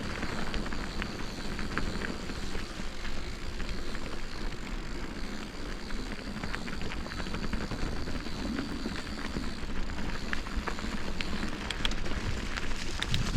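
Bicycle riding along a trail: tyres rolling with many small crackles and clicks over a steady rushing noise, and a faint high steady tone that stops about two-thirds of the way through.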